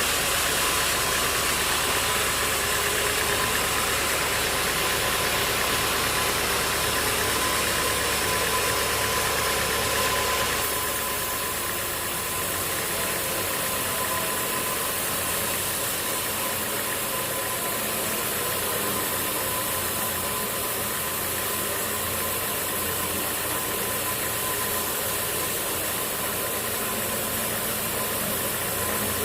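Machinery running steadily, an engine-like drone over a hiss. About ten seconds in the sound changes abruptly and its low hum drops away.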